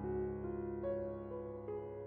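Background piano music: held keyboard notes that change every half second or so.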